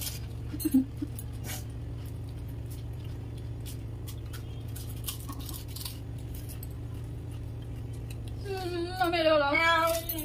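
A steady low hum with a few soft clicks in the first two seconds. Near the end, a woman gives one drawn-out, wavering moan lasting about two seconds, reacting to the chilli heat of the fuchka she is eating.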